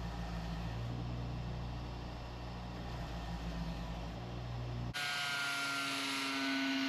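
Electric power-tool motor running steadily with a low hum. About five seconds in it cuts abruptly to a different, higher-pitched steady motor whine.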